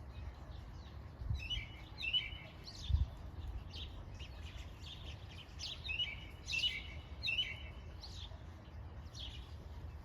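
Small wild birds chirping outdoors: short, high, repeated chirps in loose bursts every second or so, over a steady low rumble with a couple of low bumps in the first few seconds.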